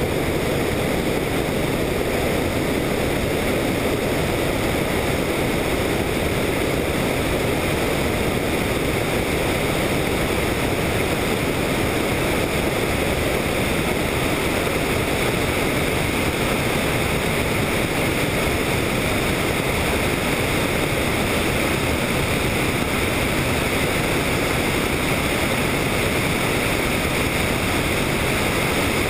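Helicopter in flight heard from on board: a steady, even rushing noise of engine, rotor and wind against the microphone, with faint thin high tones over it.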